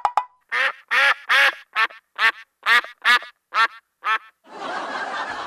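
Cartoon duck-quack sound effect: about nine short quacks in a row, a little under half a second apart, then a steady noisy wash near the end.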